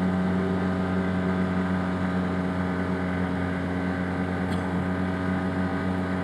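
Arctic Cat Wildcat Trail UTV engine running at a steady cruising speed, an even drone that holds one pitch throughout.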